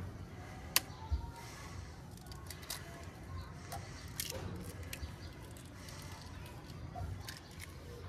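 A hen's egg being cracked open: one sharp crack of the shell about a second in, then small clicks and crackles as the shell is picked apart by hand. The egg is one the hen abandoned and it is being opened to see whether a chick formed.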